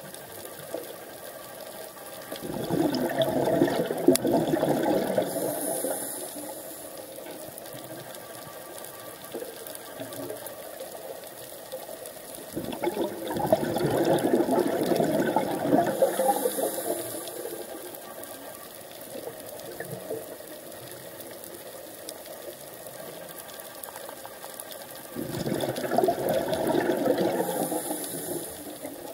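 Scuba diver's breathing through a regulator: three long bursts of exhaled bubbles, about every eleven seconds, over a steady hiss.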